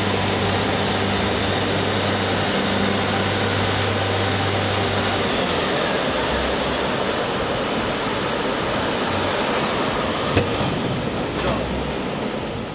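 Steady, loud factory machinery noise with a low hum underneath, from ski-production machines on the shop floor; a couple of faint knocks come near the end before the sound cuts off.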